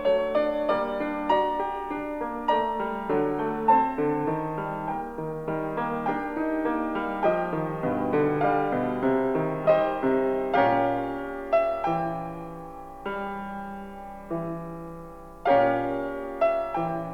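Slow, gentle solo piano music, with notes struck one after another and left to ring and fade.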